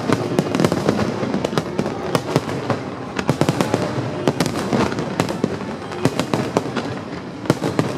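Fireworks display: a rapid, continuous barrage of sharp bangs and cracks from aerial shells bursting, several a second, over a steady dense din.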